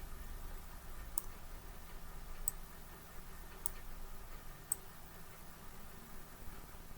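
Four faint, sharp clicks about a second apart over a low steady hiss.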